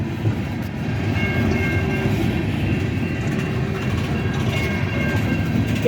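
Union Pacific coal train's cars rolling past close by, a steady rumble of wheels on rail; the cars look empty. Faint high tones come and go above the rumble.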